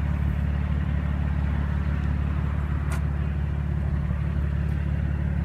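A steady low hum with no change in level, and one faint click about three seconds in.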